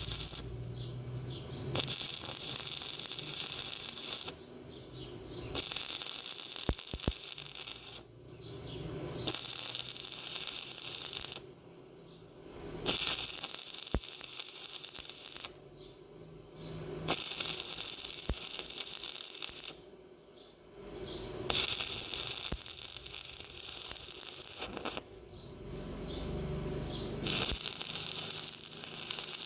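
Stick-welding arc crackling and hissing in repeated bursts of about two seconds each, with short quieter pauses between them.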